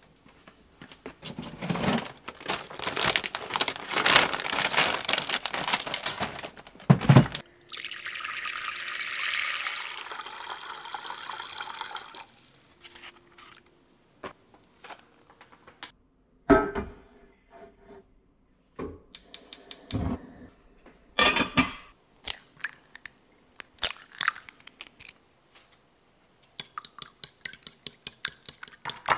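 Kitchen prep sounds: clatter and knocks, then a few seconds of water running into a saucepan, then scattered clinks. Near the end a fork beats eggs in a ceramic bowl with quick, even clicks.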